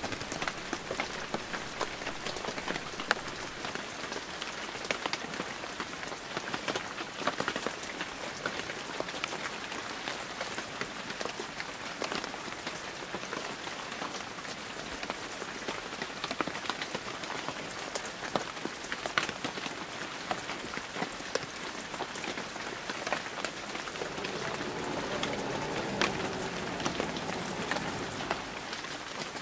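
Steady rain falling on pavement, a constant hiss dotted with the ticks of single drops. A low hum joins in about five seconds before the end.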